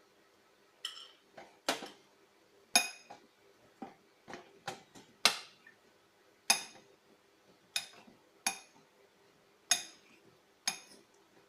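A spoon clinking against a mixing bowl as cauliflower pieces are stirred through a cornflour batter: about fifteen sharp, irregular clinks, each with a short ring.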